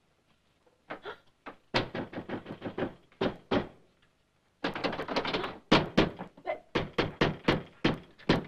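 A rapid, irregular run of knocks and thuds, starting about a second in, stopping briefly around four seconds in, then going on thicker and faster.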